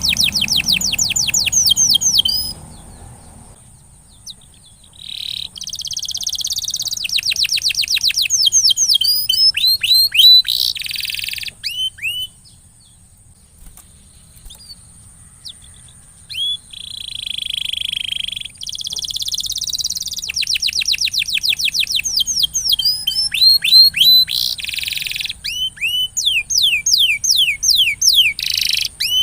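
Domestic canary singing in fast trills of rapidly repeated downward-sweeping notes, in phrases of a second or three broken by short pauses. A faint steady high tone runs underneath.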